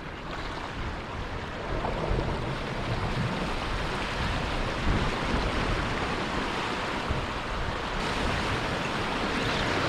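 Sea waves washing on a rocky shore, with wind on the microphone: a steady rushing noise that grows a little louder after the first couple of seconds.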